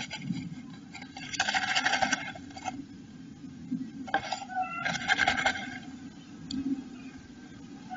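A blue tit shuffling in its nest cup of moss and animal hair inside a wooden nestbox, the material rustling and scraping under its body and feet in two scratchy bouts, about a second in and again about four seconds in.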